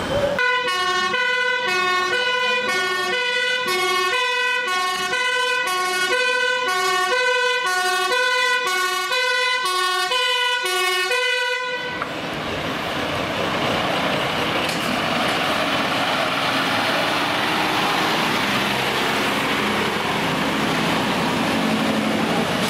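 Fire engine's two-tone siren, alternating between a high and a low pitch about half a second each, which cuts off abruptly about twelve seconds in. After that the fire engine's engine is heard running as it passes.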